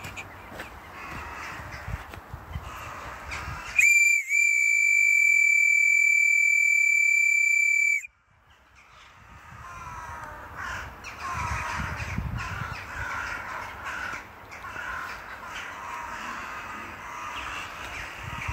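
A loud, steady whistle on a single high pitch, held for about four seconds and cut off sharply. Afterwards a flock of crows calls from the trees, many caws overlapping.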